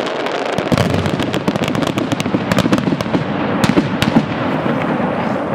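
Closing barrage of a fireworks display: a dense run of crackling and popping with a few louder bangs about three and a half to four seconds in, thinning out near the end.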